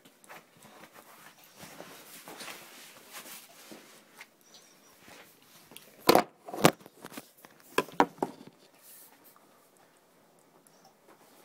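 A phone camera is handled with faint rubbing and movement noise, then set down on a kitchen counter. About six seconds in come several sharp knocks and clunks, two close together and then two more a second or so later.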